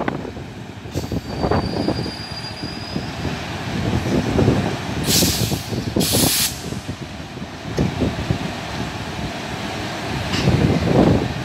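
A passenger train hauled by a WAP-4 electric locomotive rolls slowly past, rumbling on the rails. A faint high squeal runs for a couple of seconds starting about a second in, and two short hisses come about halfway through. Wind buffets the microphone.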